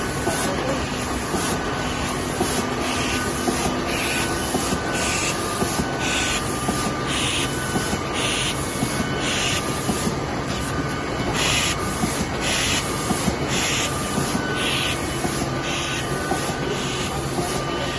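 Smyth F180 automatic book sewing machine running, a steady mechanical clatter with short hissing bursts repeating about once a second.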